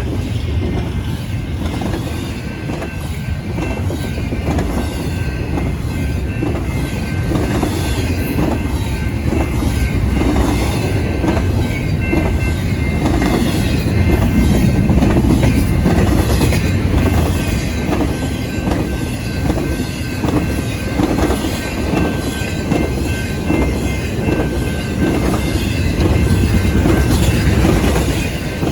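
Train rolling past, its wheels clicking steadily over the rail joints with a rumble underneath, and a faint, high, steady squeal from the wheels.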